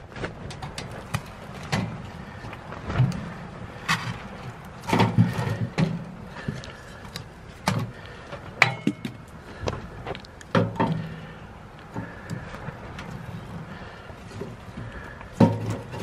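Four Dog Three Dog DX steel camp wood stove being loaded by hand: the door latch clicks open, then split logs knock and clatter against the firebox, with several heavier clunks. Fire crackles as small sharp clicks between the knocks.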